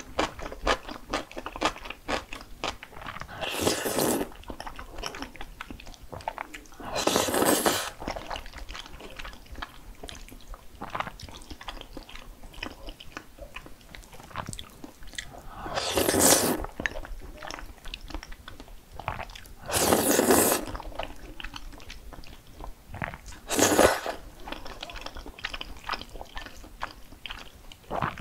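Close-miked eating: crisp crunching and chewing, with five louder bursts of under a second spread through.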